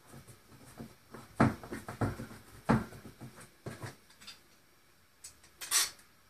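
Metal bar clamps being handled and tightened around a glued-up wooden wheel blank: a series of knocks and clicks of metal jaws and bars on wood and bench, then a short scrape near the end.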